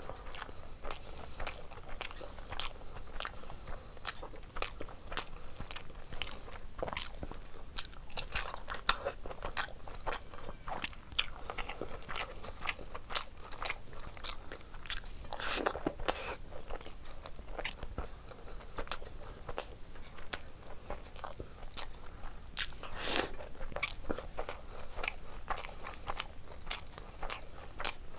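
Close-miked eating sounds: wet chewing and mouth clicks from a mouthful of rice and egg curry, with fingers squishing rice into curry gravy on a metal plate. Two louder wet sounds stand out, one just past the middle and one later on.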